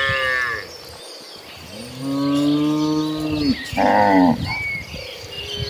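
Cows mooing: a call trailing off about half a second in, a long, low moo from about two seconds in, then a short, higher moo around four seconds. Faint high chirps run in the background.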